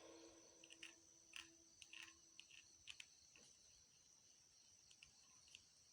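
Near silence with faint, scattered small clicks and taps, mostly in the first three seconds: flux being dabbed onto the pins of an IC on a circuit board.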